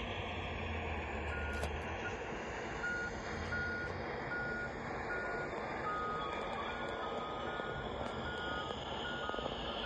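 Truck reversing alarm beeping at an even pace, about three beeps every two seconds, with a second, slightly lower-pitched alarm joining about six seconds in, over steady engine noise.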